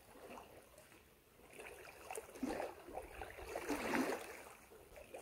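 Creek water trickling, with a few soft splashes.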